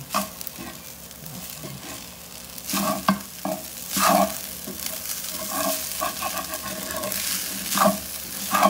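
Wooden spatula scraping and turning garlic fried rice in a stainless steel pan over a steady frying sizzle, with a pat of butter just added. The louder scrapes come about three and four seconds in and again near the end.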